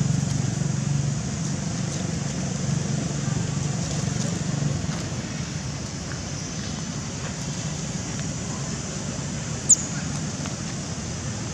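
Steady outdoor background noise with a low motor hum that fades away over the first five seconds or so. One short, high squeak stands out about ten seconds in.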